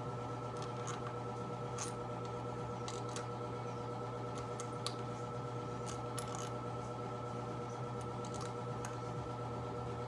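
Scattered light metallic clicks and taps of screws being handled and set into the holes of a Harley timing cover, over a steady hum from a running furnace.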